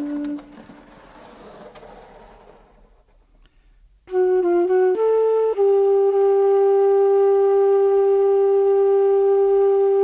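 Solo flute. A held low note stops just after the start and fades into a soft wash of reverberation, then near silence. About four seconds in, a short phrase of three or four notes leads into one long, steady held note that ends abruptly near the end.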